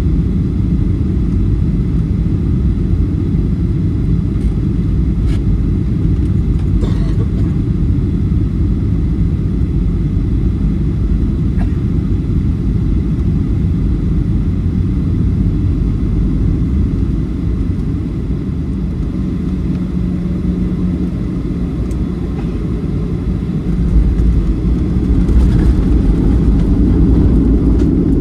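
Cabin noise of a Southwest Airlines Boeing 737 on final approach: a steady low rumble of engines and airflow. Near the end it grows louder and heavier as the jet touches down and rolls along the runway.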